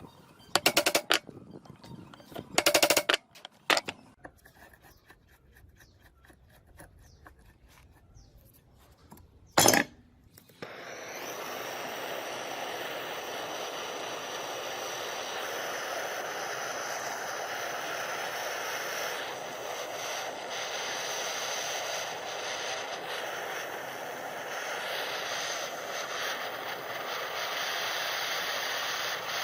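A few loud, short metallic clanks of metal parts being struck or handled. About ten seconds in, a machine starts up and keeps running steadily.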